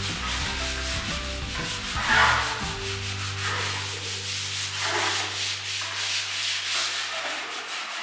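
Wall putty being rubbed by hand with a long tool across a plastered wall, a slow scratchy stroke every second or two, the loudest about two seconds in.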